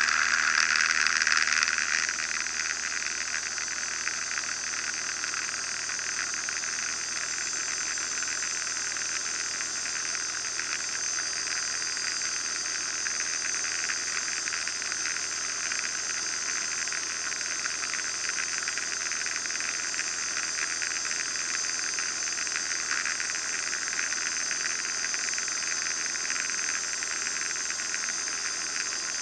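Steady in-flight cabin noise of a Van's RV-9A light aircraft's cockpit: engine and propeller with the rush of airflow, heard as an even hiss with a thin high whine over it. It is a little louder for the first two seconds, then holds level.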